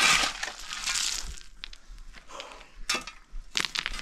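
Metal spade digging and scraping into stony, gravelly ground: a loud crunch of gravel at first, then quieter scraping and a few sharp strikes near the end.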